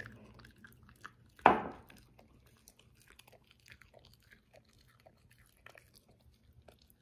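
A Shiba Inu chewing a dog treat: a loud, sharp snap about one and a half seconds in, then many small crunches scattered through the rest.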